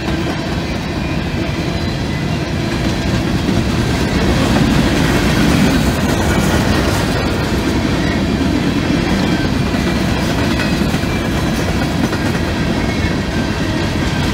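Freight train of open-top hopper cars rolling past at close range: a steady rumble with the clatter of wheels over the rails, growing slightly louder midway.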